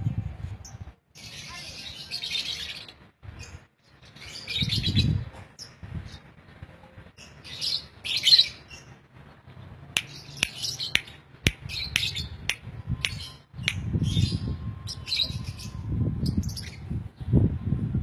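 Lovebirds giving short, shrill chirps in scattered clumps, with a run of sharp clicks in the second half over a low rumble that comes and goes.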